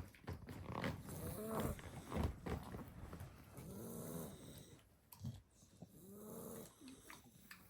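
Sleeping seven-week-old Staffordshire bull terrier puppy snoring: three pitched, whistly snores that rise and fall in pitch, about every two and a half seconds, with short snuffles and clicks in between during the first half.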